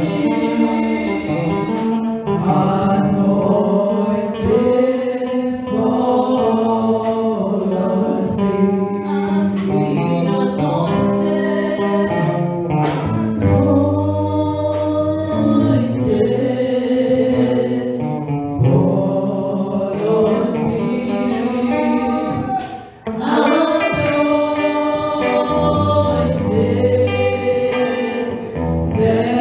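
Gospel worship song sung by several voices together, briefly dropping away about 23 seconds in.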